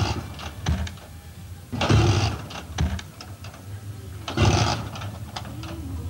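Two-stroke scooter being kick-started repeatedly: a burst of engine noise with each kick, three times about two seconds apart, with a low mechanical hum in between.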